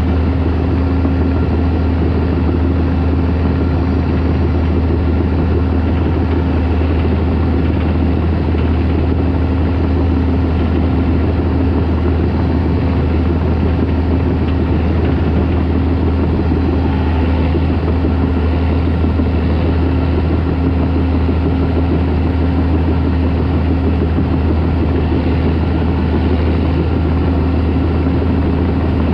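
Caterpillar D4 crawler tractor's diesel engine running steadily, a deep even drone with a steady hum above it.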